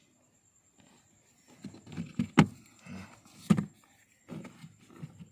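Rustling and handling noises inside a car as the driver's-side floor carpet is moved, with two sharp clicks or knocks about a second apart near the middle.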